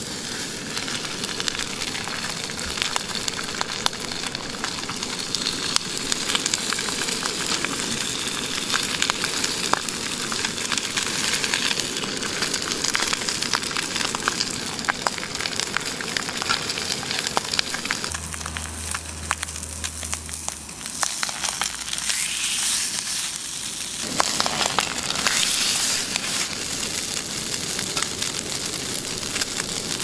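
Salmon fillet frying in a hot stone-coated frying pan: a steady sizzle with a dense crackle of small pops and spits.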